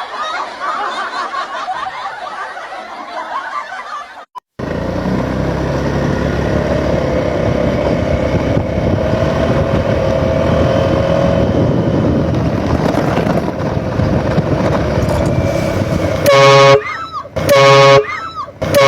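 Music for the first few seconds, then a cut to steady street traffic noise with a held engine hum. Near the end a vehicle horn sounds three very loud blasts, about a second apart.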